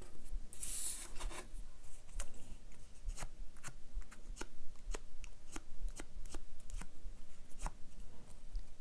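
A narrow paper quilling strip being rubbed and curved by hand against a needle tool to soften it. It gives a short rustle of paper about a second in, then a string of small irregular clicks and ticks as the strip and tool are handled.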